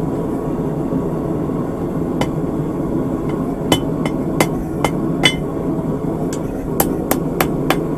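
Hand hammer striking a thin bar of hot steel over the anvil horn: a few spaced blows with a short ring, then a quicker run of light taps, about four a second, near the end, over a steady background rush.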